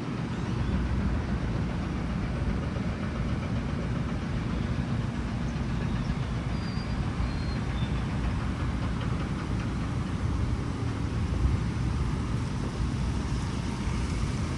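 Steady low rumble of road traffic, a downtown city's background noise.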